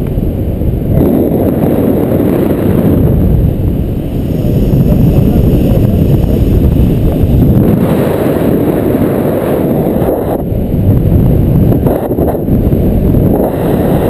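Airflow buffeting the camera microphone in flight under a paraglider: a loud, steady low rumble of wind noise.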